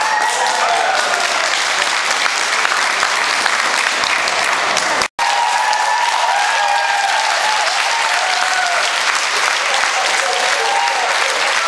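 Ringside audience applauding steadily, with voices calling out over the clapping. The sound drops out for an instant about five seconds in.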